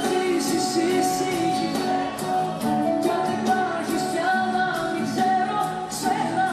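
A woman singing a song with band accompaniment, from a live concert performance; long held notes with a wavering pitch.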